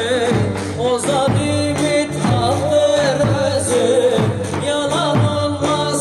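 Live Turkish folk dance music: a wavering melody line over a steady, repeating drum beat.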